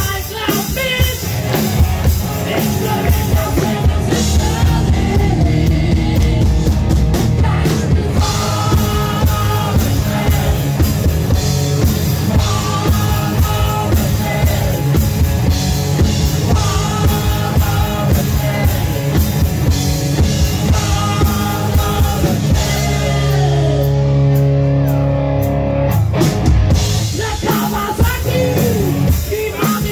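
Rock band playing a song with drum kit, guitar and singing. For a few seconds near the end the drums drop out under a held low note, then the full band comes back in.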